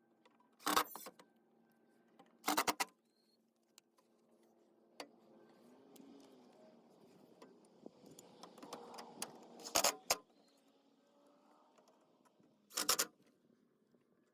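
Pieces of scrap metal clanking as they are handled and fitted together: four loud clanks with short ringing tails, two near the start and two later on, with quieter handling noise between.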